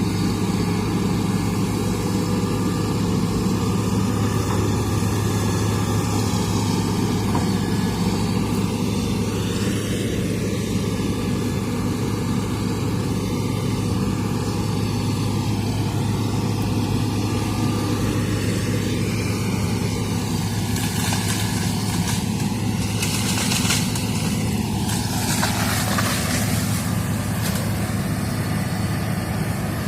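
Hitachi excavator's diesel engine running steadily with a deep, constant hum. A few brief bursts of hiss-like noise come about two-thirds of the way through.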